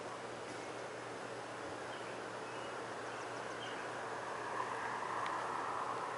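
Steady outdoor background hiss; from about four seconds in, the noise of a passing vehicle grows louder. A few faint high chirps sound in the middle, and there is a single click near the end.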